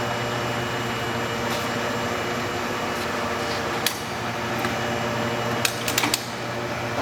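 Lehmann hollow-spindle lathe with a 25-horsepower drive running steadily at its top spindle speed of 150 RPM, giving a steady hum. A sharp click comes about four seconds in and a quick run of clicks near six seconds.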